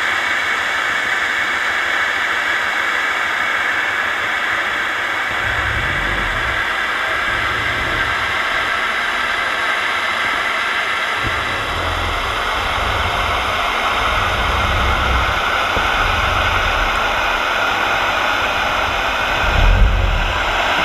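Steady rushing hiss of water streaming past an underwater GoPro housing on a towed scallop dredge, with uneven low rumbling buffets that grow stronger about a second before the end.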